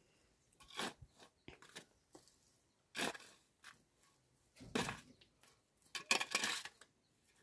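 A spade digging into and scraping through stony soil: four short, gritty scrapes about every one and a half to two seconds.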